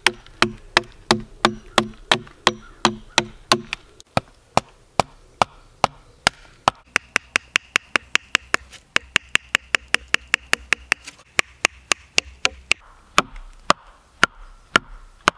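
Camp hawk axe hammering a wooden stake into the ground: a steady run of sharp wooden knocks, about three a second, each with a short hollow ring. About four seconds in the blows come quicker, about four a second, and the ring drops away.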